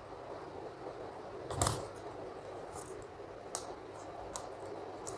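Handling noise from an iPad and its cardboard box on a desk: a soft knock about one and a half seconds in, then a few light clicks and taps, over a steady low room hiss.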